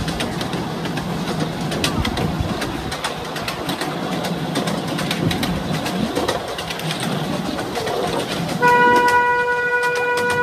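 Miniature ride-on train running along its track, with wheels rolling and clicking over the rails and a low, steady hum. Near the end a steady horn-like tone starts and holds.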